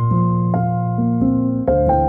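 Instrumental background music: sustained notes and chords, with a new note struck every half second or so.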